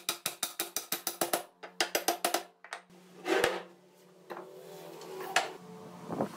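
A wooden block struck rapidly against a pine table frame, knocking the top rail down onto its joints: a fast run of sharp wooden knocks, about seven a second, for two and a half seconds. Then one heavier thump and, a couple of seconds later, a single lighter knock.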